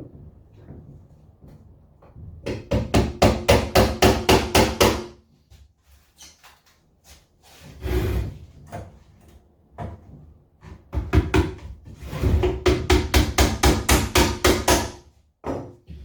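Hammer tapping small frame nails into the wooden runners of a Commercial hive brood chamber: two runs of quick, even blows at about five a second, the first from about two and a half seconds in to five, the second from about eleven seconds to fifteen, with a single heavier knock around eight seconds.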